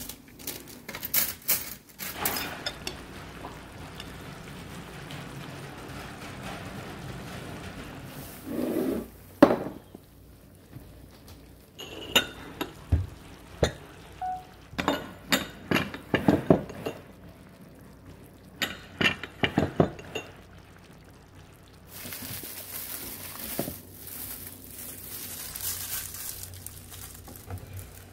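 Metal chopsticks and tableware clinking and tapping against bowls and plates during a meal, in scattered clusters of short sharp clicks.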